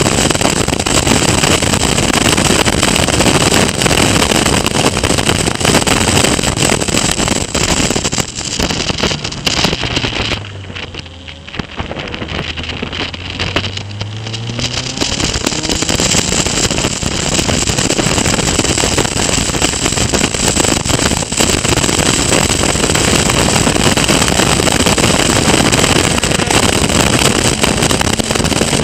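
Caterham Academy race car's four-cylinder engine running hard under heavy wind rush on the onboard microphone. About ten seconds in it goes quieter for a few seconds, its low note climbing again as the loud running returns.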